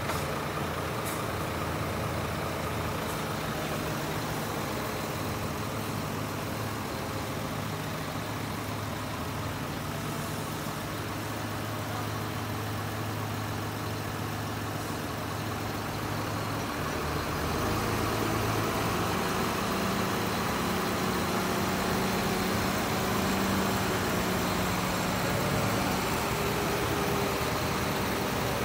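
Diesel engines of an Iveco Eurotrakker concrete mixer truck and a John Deere tractor running steadily. About two-thirds of the way through, the engine note rises and grows louder.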